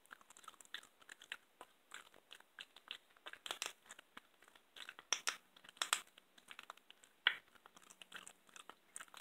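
A cat chewing a raw chicken wing, its teeth cracking the bones in irregular sharp crunches. The loudest crunches come in the middle.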